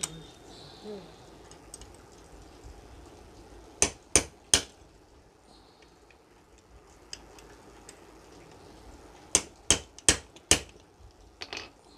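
Ball-peen hammer striking a screwdriver set against the aluminium housing of an electric hand planer, tapping a part out of the casing in short strokes so the aluminium doesn't crack. There are three quick sharp knocks about four seconds in, then four more from about nine to ten and a half seconds, and lighter taps near the end.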